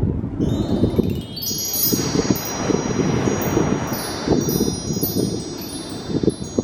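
Small bells on a surf rod's tip jingling repeatedly, the signal of a fish biting, over wind and surf noise.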